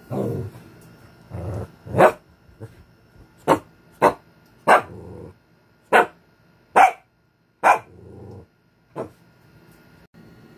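An angry Shih Tzu barking sharply about eight times, with low growls in between.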